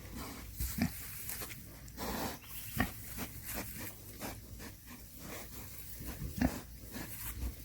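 Pigs grunting: a few short, low grunts spread apart, amid scattered rustling and clicks.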